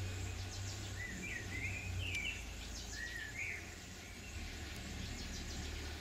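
Outdoor ambience: a small bird gives a few short chirps, one after another, over a steady low rumble.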